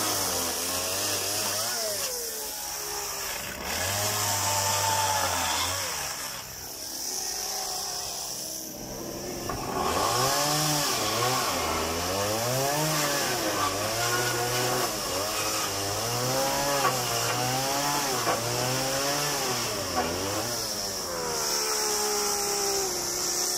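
Two-stroke petrol chainsaw cutting through wooden pallet crates, its engine revving up and dropping again and again as it bites into the wood. It eases to a lower speed for a few seconds before the cuts resume, and its revs fall off near the end.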